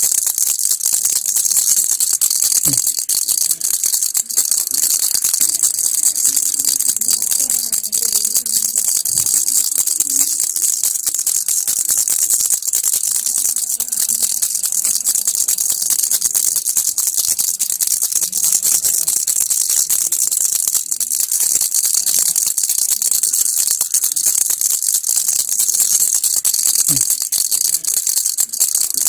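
Baby rattle (kilukki) shaken without a break: a fast, steady rattle of beads inside a toy.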